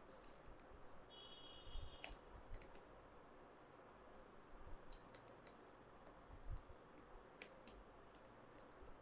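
Faint typing on a computer keyboard: irregular, quick keystroke clicks as text is entered into a form.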